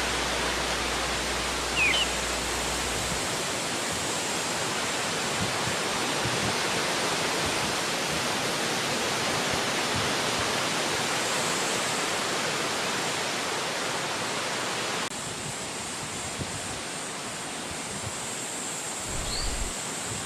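Wind blowing through forest trees, a steady even rush, with two brief high chirps, one about two seconds in and one near the end. The level steps down slightly about three-quarters of the way through.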